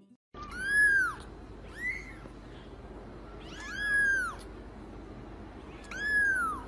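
Kitten meowing four times: short, high mews that rise and fall in pitch, spaced a second or two apart.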